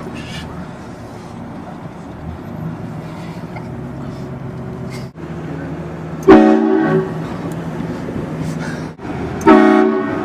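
Train horn blasted twice in short bursts, a few seconds apart, the second near the end, over a steady vehicle hum.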